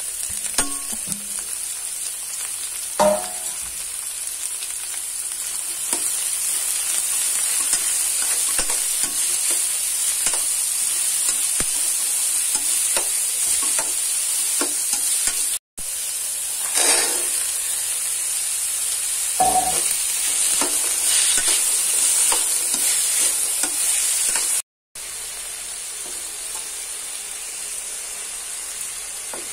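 Shredded cabbage and capsicum sizzling in hot oil in a steel pan as a spatula stirs them, scraping and knocking against the pan. The sizzle hisses steadily, broken by two brief cut-outs to silence about halfway and near the end.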